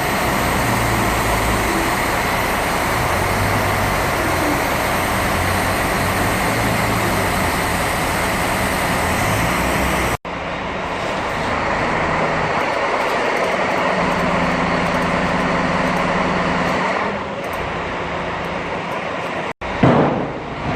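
Heavy vehicle's diesel engine running steadily, cut off abruptly twice by edits about ten seconds in and near the end.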